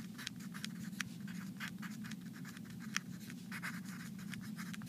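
Handwriting: a run of short, irregular scratching strokes of a writing tool on a surface, over a steady low hum.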